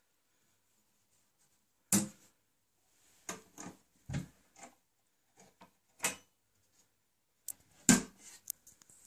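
Wooden cabinet doors of a handmade TV stand being shut and opened, giving separate knocks and clicks: one about two seconds in, a quick cluster between three and five seconds, another around six seconds, and the loudest about eight seconds in.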